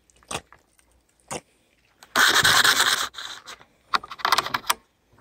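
Camp cookware and a utensil being handled on a metal table: a few light clicks, then a scraping rush lasting about a second, and a shorter scrape with clicks near the end.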